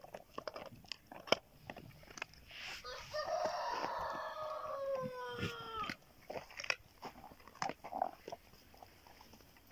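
Dogs gnawing bones, with scattered sharp cracks and crunches. About three seconds in a rooster crows, one long call that falls in pitch at its end, the loudest sound here.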